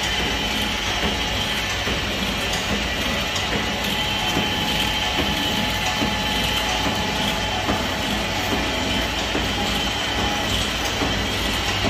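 Pillow-wrap packing machine running steadily: its chain-and-sprocket drive and gears make a continuous mechanical rattle over a steady high whine.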